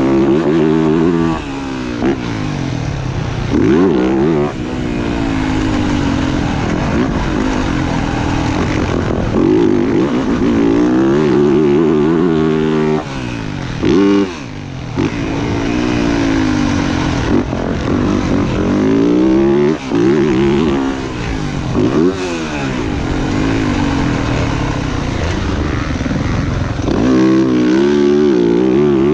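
Motocross dirt bike engine being ridden hard, its pitch climbing and falling again and again as the throttle is opened and the gears change, with the throttle chopped briefly several times. A steady rush of noise runs underneath.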